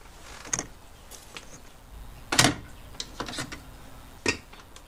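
Plastic trim covers on a Ford F-150's inner door panel being pried out with a pointed metal tool: a series of sharp plastic clicks and snaps, the loudest about two and a half seconds in and another near the end.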